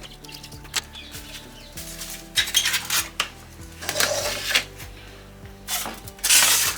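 Clicks and clatter of small hard objects being handled and set down on a workbench, with a louder scraping rattle near the end, over steady background music.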